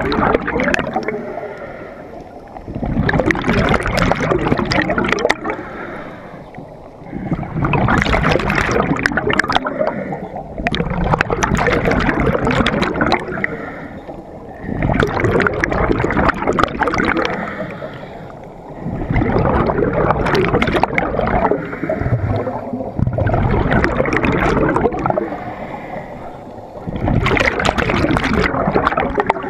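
Scuba breathing heard underwater: loud rushes of bubbles from a diver's regulator exhaust, surging about every four seconds with quieter gaps between, in a steady breathing rhythm.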